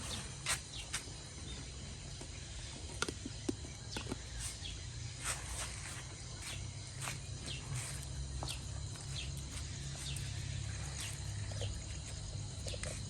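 Outdoor ambience: scattered light clicks and taps over a steady low rumble, with a faint steady high whine.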